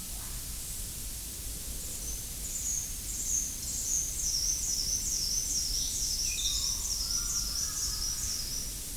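A small bird singing a long run of short, high, downward-sliding notes, about two a second, over a steady background hiss.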